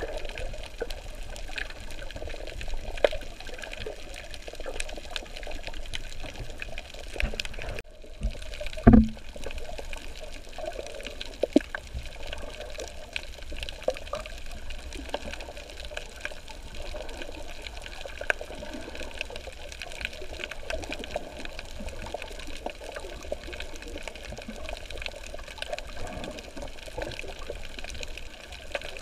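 Water moving around a snorkeller's camera, with scattered small clicks and a single loud low thump about nine seconds in.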